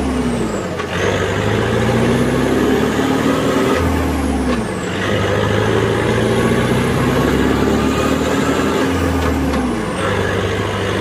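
Yanmar 1160 SR turbo tractor's diesel engine pulling on the move through a straight exhaust off the turbo. Engine speed drops near the start, about five seconds in and near the end, climbing in between, with a faint high turbo whistle rising with the revs and falling away at each drop.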